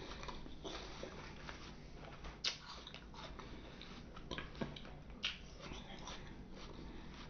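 Close-miked chewing of crisp fresh fruit, with a handful of sharp crunching bites spread through it.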